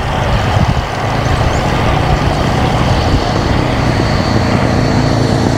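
A motor vehicle engine running steadily close by, over rushing wind noise on the microphone of a moving bicycle.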